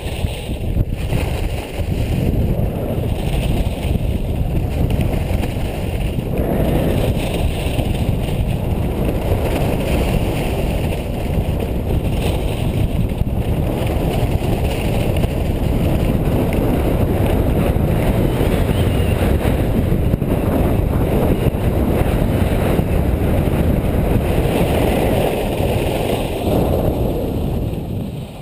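Wind rushing over an action camera's microphone during a fast downhill ski run, with the skis sliding on packed snow: a loud, steady roar that fades away near the end as the skier slows down.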